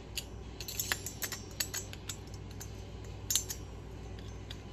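Small metal tools and parts of a nitro model engine clicking and clinking in light, irregular taps during hand reassembly, busiest about a second in, with one louder clink a little past three seconds.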